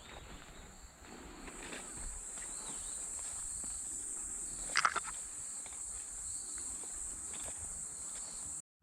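Steady high-pitched insect chorus, with one short, sharper sound about five seconds in.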